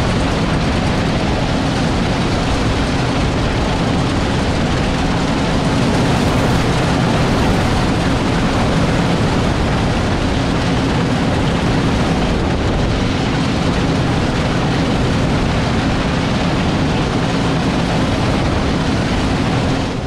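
Combine harvester running steadily while harvesting soybeans, a loud, even machine drone with a constant low hum.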